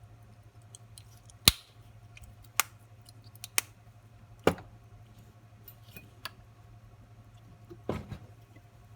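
Small metal watchmaker's tools clicking and tapping against pocket-watch parts: about six sharp, irregular clicks over a steady low hum.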